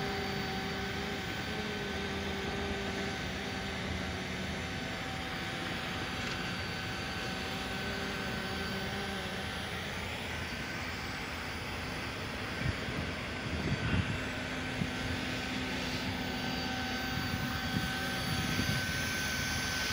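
LIUDU TOP3400C automatic hot-air PVC welding machine running, its hot-air blower giving a steady rushing hum with a thin high whine. A few soft low knocks come in the second half.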